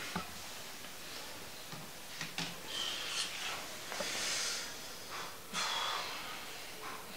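A man's breaths, with a few short, noisy exhales, and bedding rustling as he sits up on a bed.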